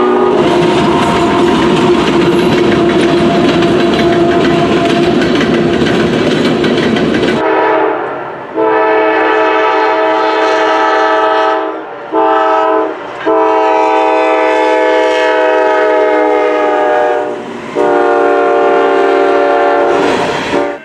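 Diesel freight locomotive air horn, several notes sounding together, over the rumble of a passing train. About seven seconds in, a GE C44-9W locomotive's horn takes over in separate blasts, long, long, short, long, then long again, in the pattern blown for a grade crossing.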